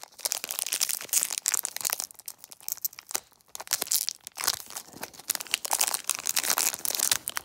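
Foil trading-card pack wrappers crinkling and crackling as they are handled and torn open by hand, with a couple of brief pauses.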